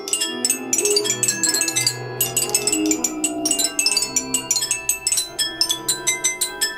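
Self-playing acoustic guitars and small remote-controlled robots playing together: a busy, continuous stream of short plucked and tapped notes that ring on.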